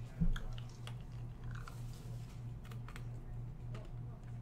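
Scattered light clicks and taps of hands working at a desk, with a small thump just after the start, over a low pulsing hum.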